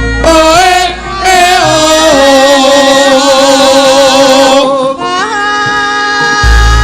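Sinden singing a long, sliding Javanese vocal line with a wavering vibrato over gamelan accompaniment.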